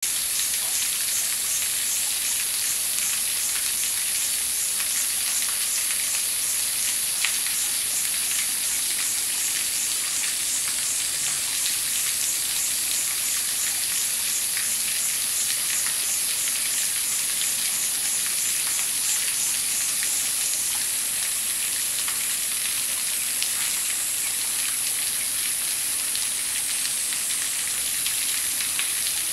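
Steady hiss of shallow flowing water, with faint scattered crunching clicks as an Asian small-clawed otter chews a frog.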